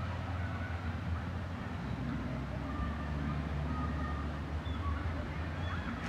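Outdoor park ambience: a steady low rumble with faint, brief high calls in the distance.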